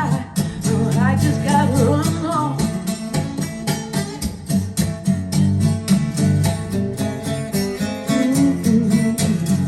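Live acoustic recording played back over a hi-fi system through KLH Model 3 speakers: acoustic guitar over a steady bass line, with a brief, wavering vocal phrase in the first couple of seconds.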